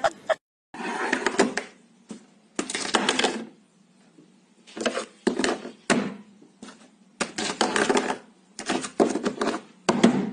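Plastic cable-grommet cap rattling and clattering on a wooden desk in about seven short bursts, each under a second.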